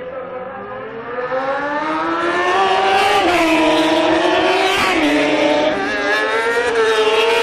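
Two or more 1000 cc superbikes accelerating hard past at high revs. The engine note climbs, then falls in steps from about three seconds in as they go by and shift up.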